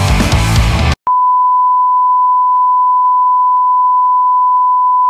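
Rock music for about a second, then a sudden cut and a single steady electronic beep tone, one unchanging pitch held without a break.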